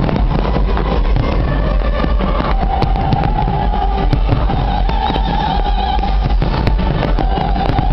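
Aerial fireworks going off over a dense crowd: a loud, steady wash of noise with scattered sharp bangs, and held notes of music from the concert stage's sound system.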